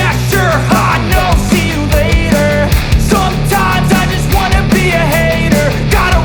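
Loud rock background music with a steady drum beat and a melodic line above it.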